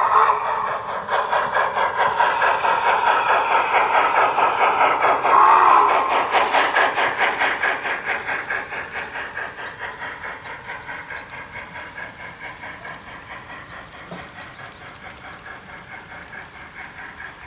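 HO scale model Union Pacific FEF steam locomotive running with a freight train, making a fast, regular beat that fades steadily as the train moves away. A brief tone sounds about five seconds in.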